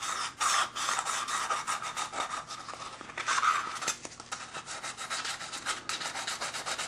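Sandpaper scraping against the cut edge of an aluminum bottle in quick back-and-forth strokes, about four a second, sanding the edge flat.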